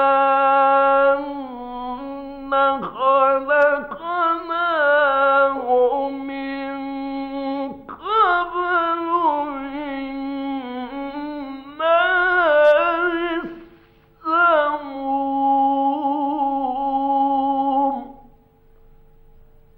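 A male Quran reciter's voice chanting in long, ornamented melodic phrases, with held notes sliding up and down. The last held note ends near the end. It is an old radio recording, dull in the highs, with a faint steady hum underneath.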